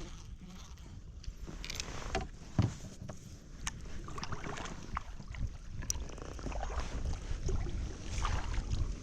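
Kayak on moving water: water splashing and lapping, with scattered small knocks and clicks and one louder low thump about two and a half seconds in.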